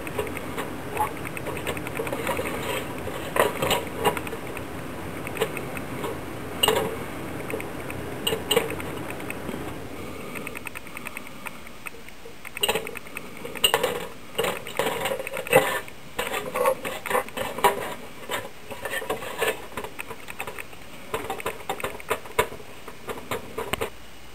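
Irregular light clicks and knocks: a small floating toy ball tapping against the aquarium glass as a cichlid nudges it. A steady low hum runs underneath and drops away about ten seconds in, after which the taps come thicker and louder.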